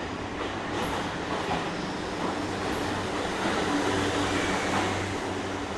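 JR East E235 series 1000 electric train rolling slowly into a station platform: a steady rumble of wheels on rail with an even low electric hum from the running gear.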